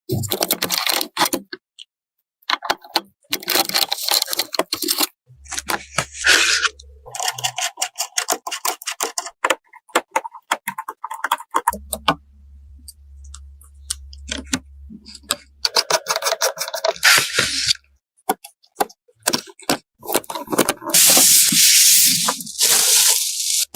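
PC parts being handled and fitted together: a run of sharp clicks, taps and scrapes of plastic and metal, with a low hum twice and a loud stretch of hissing near the end.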